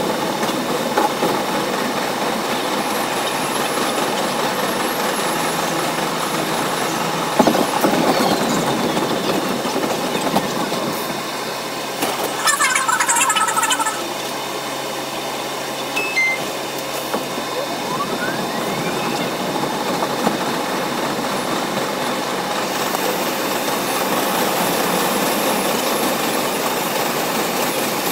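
R62A subway train running at speed on elevated track: steady rolling and rumbling noise with a brief wheel squeal about twelve seconds in.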